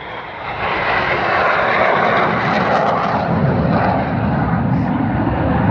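Jet engine noise of an RAF BAE Hawk T2 jet trainer flying by: a broad roar swells about half a second in and stays loud, its deeper rumble growing toward the end.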